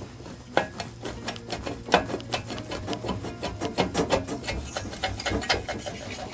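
Cylinder head of a 1965 VW 1200 air-cooled flat-four being worked loose by hand and slid off its studs: a run of irregular metal clicks, clinks and scrapes, several a second.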